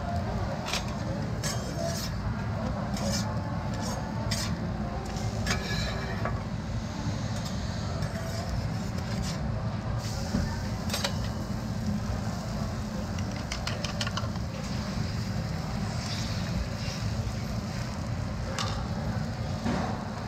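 Okonomiyaki frying on a flat steel griddle, with a metal spatula clicking and scraping against the griddle now and then, over a steady low rumble.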